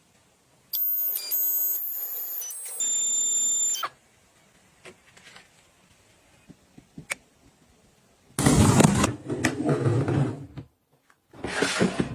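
High electronic beeps and tones lasting about three seconds, stepping between pitches like an appliance's chime. Later come two loud bursts of noise.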